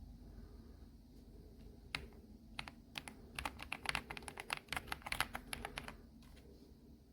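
Typing on an Epomaker Ajazz AK820 Pro gasket-mounted mechanical keyboard with Ajazz Gift switches: a quick, uneven run of keystroke clicks starting about two seconds in and stopping about a second before the end.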